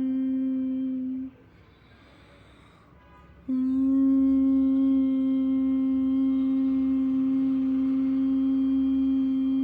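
Bhramari pranayama (bee breath): a steady, single-pitch hum on the out-breath ends about a second in, a short quiet breath in follows, and a new long hum starts about three and a half seconds in and holds steady.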